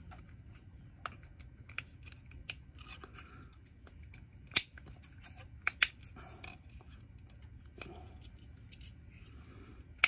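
Small sharp plastic clicks and handling noise as the white plastic case of a Ring alarm contact sensor is pressed and snapped back together, with two louder clicks around the middle.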